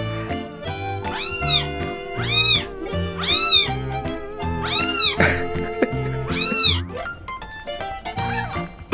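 A kitten meowing five times, roughly a second or so apart, each call rising and then falling in pitch, over background music.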